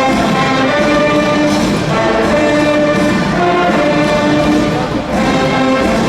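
School brass band playing a loud cheering tune, held brass notes in short phrases that change about every second.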